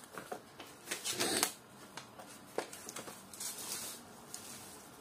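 Crinkling and rustling of a bubble-wrap packing bag and paper leaflets being handled, in irregular bursts, loudest about a second in.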